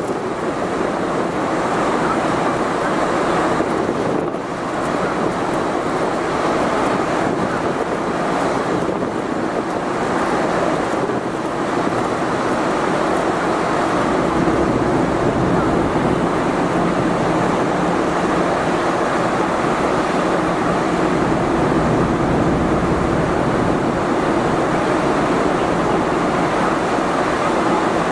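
Steady rushing noise on the open top deck of a car ferry under way: wind buffeting the microphone, mixed with the rush of water along the hull and a low, even hum from the ship.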